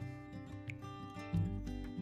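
Background music with plucked acoustic guitar notes.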